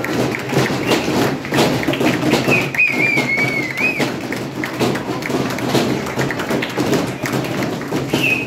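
A crowd of students clapping and thumping over a general hubbub, with a wavering whistle lasting about a second and a half around three seconds in, and a brief one near the end.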